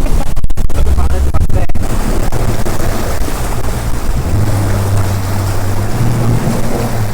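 Bass boat running on the water: a steady low engine hum under rushing wind and water noise, the hum growing stronger about four seconds in.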